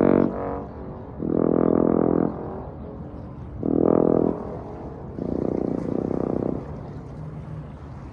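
Trombone improvising a slow phrase in E minor: four separate notes with short gaps between them, the second and fourth held longest.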